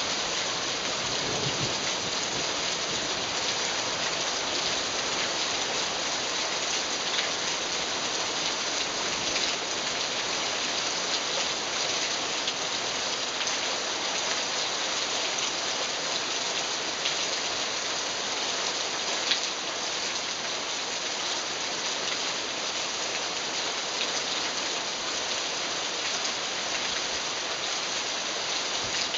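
Heavy rain from a summer squall, falling as a steady, even hiss, with a few louder single drop hits standing out now and then.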